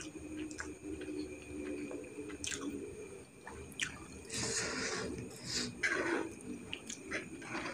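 Close-up wet chewing of a mouthful of fried instant noodles: small moist mouth clicks and smacks, with two longer wet bursts about four and a half and six seconds in.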